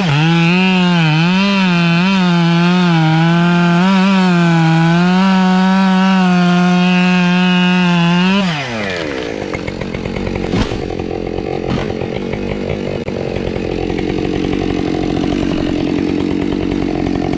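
Chainsaw running at high revs, its pitch wavering up and down as it works through wood. About eight and a half seconds in, the revs drop sharply and it runs on lower and quieter, with two sharp knocks a second or so apart.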